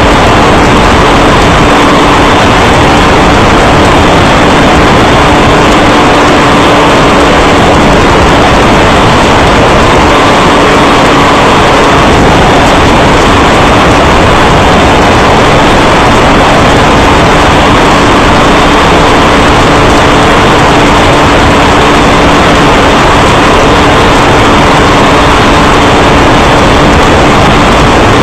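Loud, constant engine and road-and-wind noise from a vehicle travelling at high speed, with a faint steady drone underneath; the sound is so loud that it saturates the recording.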